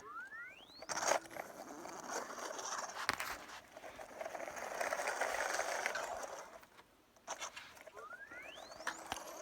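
Sphero BB-8 droid rolling on the floor, a scraping, pattering rolling noise that swells for several seconds in the middle, with a few sharp clicks. A thin rising chirp sounds at the very start and another about eight seconds in.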